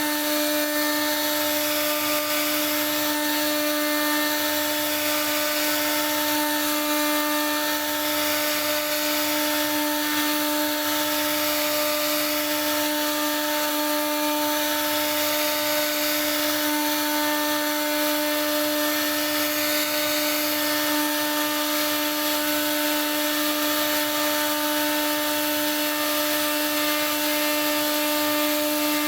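CNC router spindle running at a steady high whine while its bit cuts wood, the cutting hiss swelling and easing about every two seconds as the tool moves along its path.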